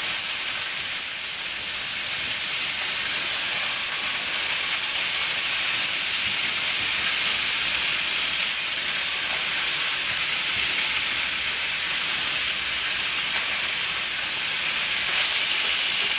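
Boneless pork chops browning in olive oil in a hot frying pan, with sliced zucchini added, sizzling steadily.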